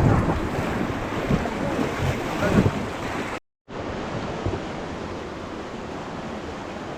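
Rushing river water with wind buffeting the microphone, with a few louder splashes in the first half. About halfway through the sound cuts out for a moment, then comes back as a steadier, quieter rush of water.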